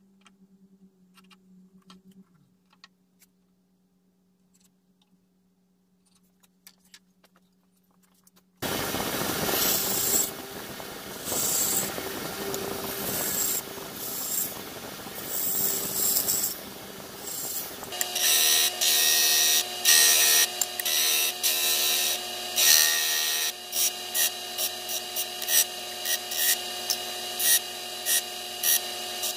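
Faint ticks and a low hum for the first eight seconds or so, then a scroll saw starts suddenly and runs while cutting small wood pieces. About halfway through it gives way to a disc sander running with a steady hum, louder each time a piece of wood is pressed against the disc.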